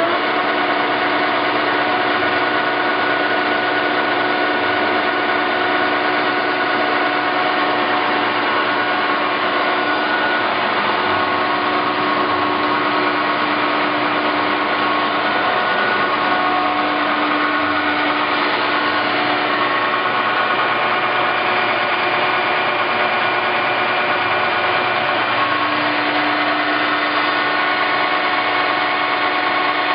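A 15" x 36" Clausing Colchester 1532 engine lathe running under power, a steady mechanical hum with a gear whine of several pitches that shift for a few seconds in the middle.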